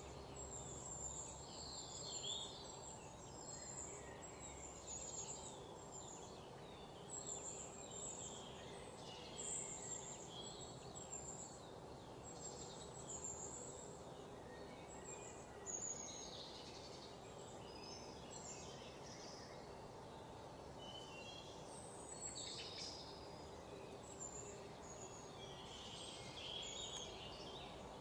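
Outdoor park ambience: many small birds chirping and calling throughout, over a faint steady background noise.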